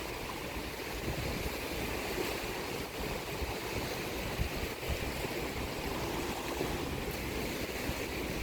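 Sea waves washing on the shore in a steady, unbroken wash of surf, with irregular low rumbles underneath.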